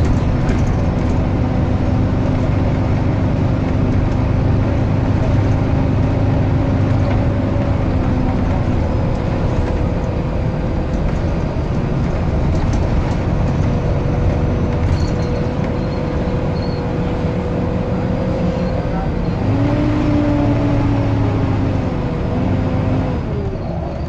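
Volvo B9TL double-decker bus's 9-litre six-cylinder diesel running under way, heard inside from the upper deck, with a steady vacuum-cleaner-like whine over the engine. About two-thirds of the way through, the whine's pitch drops and wavers as the bus changes speed.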